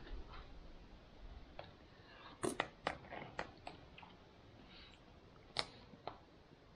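A spoon scooping curry inside a foil MRE pouch: a scattering of short clicks and crinkles from the pouch being handled. The loudest clicks come about two and a half seconds in and again near the end.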